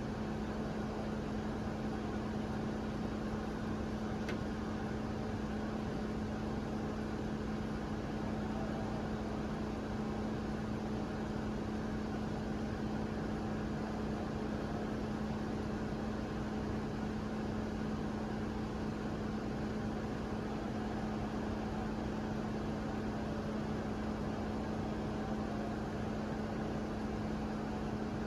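Bulldozer's diesel engine running steadily at a constant speed, a continuous hum with a strong low drone and no change in pitch or load.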